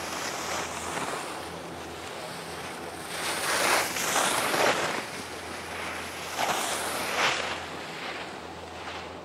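Wind blowing across the camera microphone, a steady rush that swells into stronger gusts around four seconds in and again around seven.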